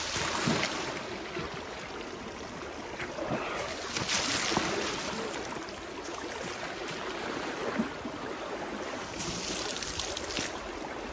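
Water splashing and spattering as an Asian elephant sprays water over itself with its trunk while standing in a river, over a steady wash of moving water. Louder spraying splashes come at the start, about four seconds in and again near the end.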